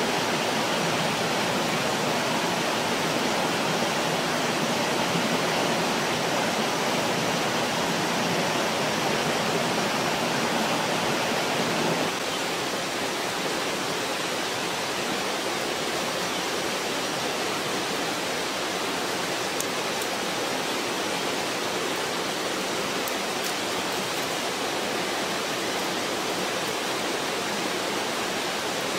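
Steady rushing noise of running water, with no other sounds standing out. About twelve seconds in it steps down slightly and grows thinner in the lower range, then carries on steadily.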